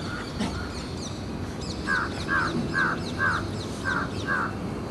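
A crow cawing six times in a row, about two caws a second, starting about two seconds in.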